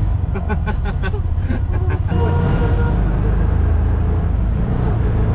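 Motor vehicle engine running with a steady low rumble. A quick run of short clicks sounds in the first two seconds, then a held tone for about a second.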